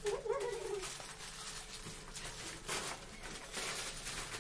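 Lay's chip packets crinkling and rustling as they are handled and torn open, in irregular crackles. A brief wavering call sounds in the first second.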